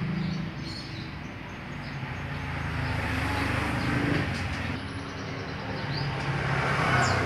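Low engine hum of passing vehicles, rising and falling in level.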